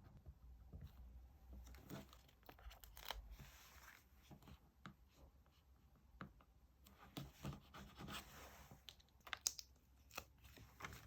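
Faint paper and sticker handling while decorating a diary: light rustling and small taps, with two longer tearing sounds, about three seconds in and again about eight seconds in.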